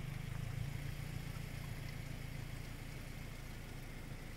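A vehicle engine idling: a low, steady rumble.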